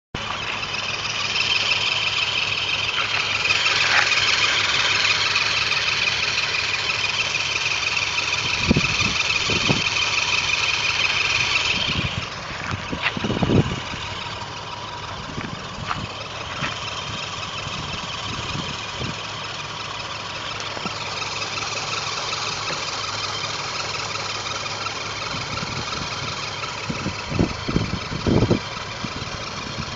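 A machine, most like an engine, running steadily and producing a strange noise. A bright high-pitched hiss or whir sits over it for the first dozen seconds and then stops abruptly. A few short knocks come through in the second half.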